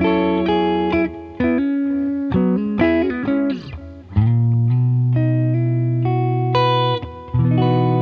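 SQOE SETL980 Telecaster-style electric guitar played through an amplifier with effects: short picked chords and quick notes with a string bend, then long ringing chords from about four seconds in.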